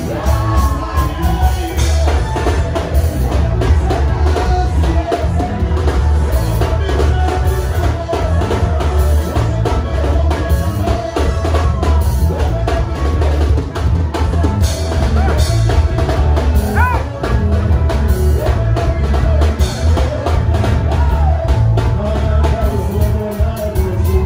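Band music with a drum kit and heavy bass, with singing over it.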